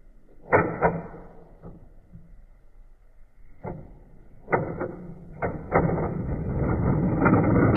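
Plastic toys and packaging being handled: a sharp knock about half a second in, a few scattered clicks, then steady scraping and rustling near the end.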